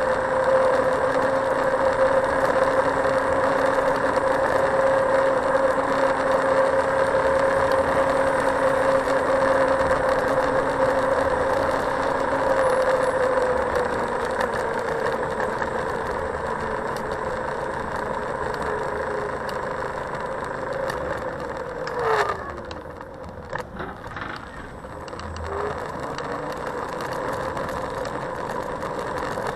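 Xiaomi Mijia M365 electric scooter riding along: a steady electric motor whine over tyre and wind noise. About two-thirds of the way through the whine slides down in pitch and fades as the scooter slows, with a sharp knock and a few clicks. The rolling noise then goes on more quietly.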